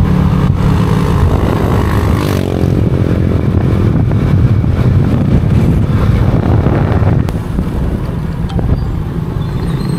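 Motorcycle engine running steadily while riding along the road, with wind and road noise. About two and a half seconds in, an engine note briefly shifts in pitch.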